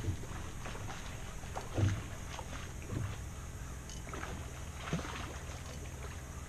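A steady low hum with a few dull knocks a second or more apart.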